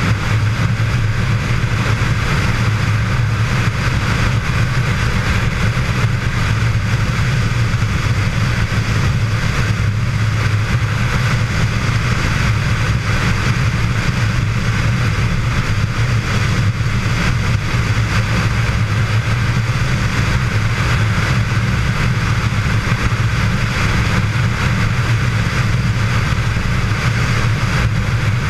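Touring motorcycle cruising at steady highway speed: an even engine drone mixed with constant wind and road noise, unchanging throughout.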